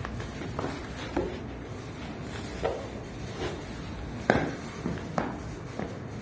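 A series of light knocks and taps, roughly one every second and unevenly spaced, over a low steady background hum; the sharpest comes about four seconds in.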